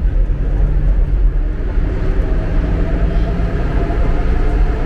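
Millennium Underground metro train running, a steady low rumble of wheels on rail with a faint steady motor whine.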